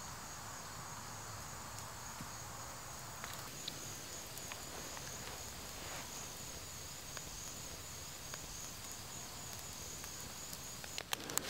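Insects trilling steadily on one high note, over a wood campfire burning with occasional small crackling pops. Near the end a few louder clicks and a short rustle.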